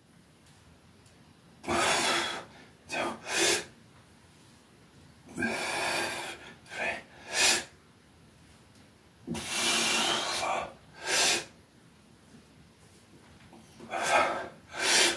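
A man breathing hard with effort through repeated overhead band presses: a long forceful exhale followed by one or two short sharp breaths, repeating about every four seconds, four times over.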